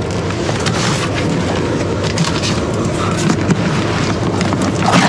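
Tape and cardboard being ripped as a heavily taped shipping box is torn open: a continuous run of crackling, tearing noises with many sharp snaps.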